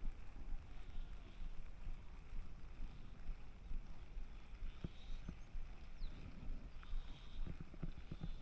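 Steady low rumble of wind buffeting the microphone outdoors, with a single faint click about five seconds in.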